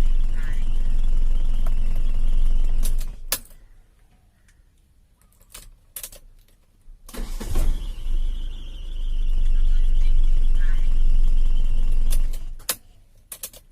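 Car engine running, switched off with the key about three seconds in, then started again about seven seconds in, running briefly, and switched off once more near the end, with clicks from the key and switch at each stop; the engine now starts from the key, showing the ignition switch works.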